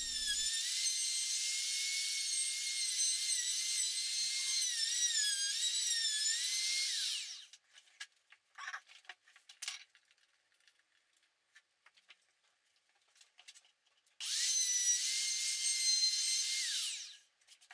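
Compact trim router with a small single-flute bit routing F-holes through a guitar top along a template, its high whine dipping and wavering in pitch as it cuts, then winding down about seven seconds in. A few light knocks follow, and a couple of seconds later the router runs and cuts again for about three seconds before winding down near the end.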